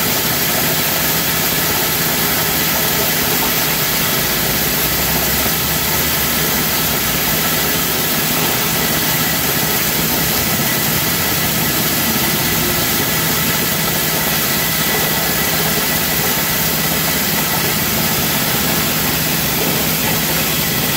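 Dry coffee hulling machine with blower running steadily while hulling green coffee beans, driven by a small petrol engine; an even, unchanging machine noise.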